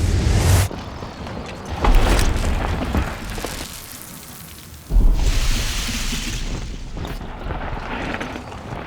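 Deep booming hits with a heavy low rumble and a rushing hiss, coming in suddenly about two seconds in and again about five seconds in, each fading away over a few seconds.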